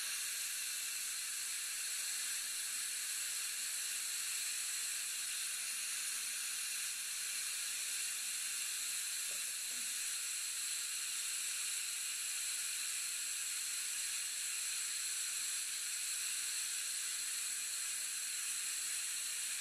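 Dental saliva ejector running in the patient's mouth: a steady high-pitched suction hiss.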